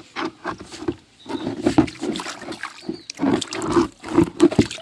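Water sloshing around a plastic basin and splashing out as the basin is tipped into a small cement pond, in irregular bursts.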